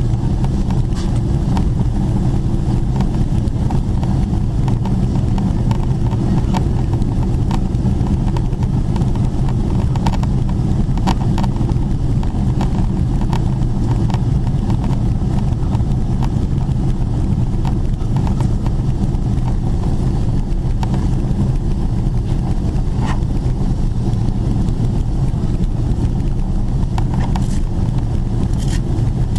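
Cabin noise of a Boeing 777-300ER in descent, heard from a window seat: a steady low rumble of airflow and its GE90 engines, with a few faint clicks scattered through it.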